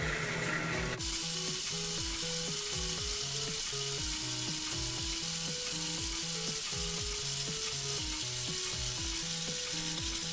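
Background music with a steady beat and a repeating bass line, overlaid about a second in by a loud, even sizzling hiss that cuts in suddenly and runs on.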